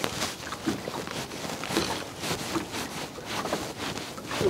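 Irregular light rubbing and small clicks as a thin sinking fly line is handled and pulled through the fingers to pick out a tangle.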